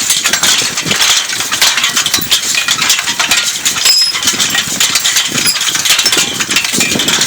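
Continuous metallic rattling and clinking from a horse-drawn IH cultivator and its team's harness as it is pulled through the soil.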